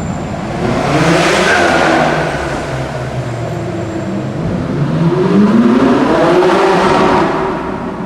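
Supercar engine accelerating in a tunnel, its pitch rising in two pulls: one about a second in, and a longer, louder one from about four to seven seconds in.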